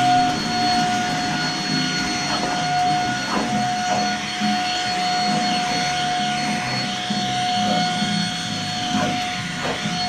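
Stick vacuum cleaner running on carpet, a steady motor whine over the rush of suction, with a few light knocks along the way.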